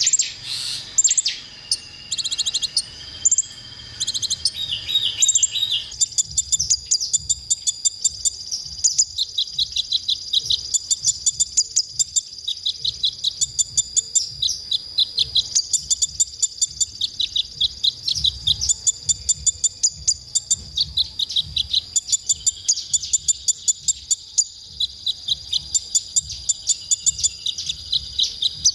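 Male Van Hasselt's sunbird (kolibri ninja) singing: a few varied twittering phrases, then from about six seconds in a fast, even run of sharp high chirps, roughly three a second. A steady high-pitched insect-like whine sits behind the song.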